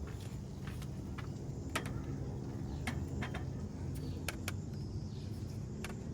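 A steady low mechanical rumble with scattered sharp clicks and taps over it.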